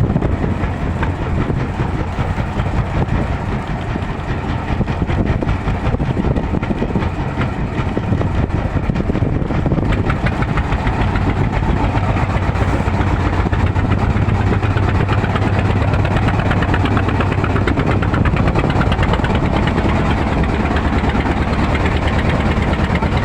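Boat engine running steadily, with a low, even hum throughout.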